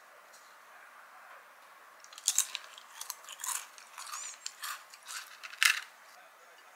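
Crisp deep-fried batter of balloon-fried perilla leaves crunching and crackling as it is broken. After a couple of quiet seconds comes a run of sharp crackles, the loudest near the start of the run and just before it stops.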